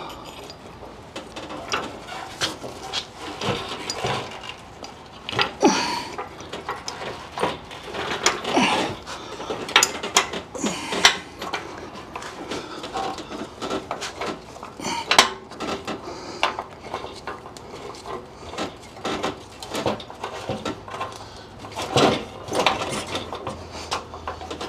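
Metal tools and hardware clinking and clicking irregularly, with a few sharper knocks, while a bolt is worked in by hand at the front of a Jeep's frame.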